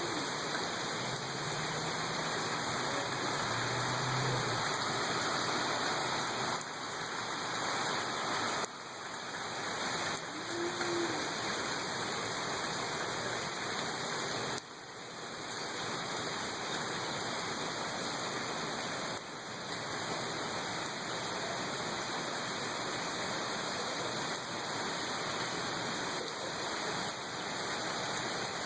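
Steady rainfall, an even hiss of many drops, dipping in level suddenly a few times.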